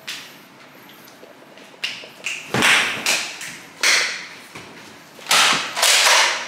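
Toy foam-dart blaster fired about six times at irregular intervals, each shot a short sharp burst. One shot about two and a half seconds in comes with a low thud.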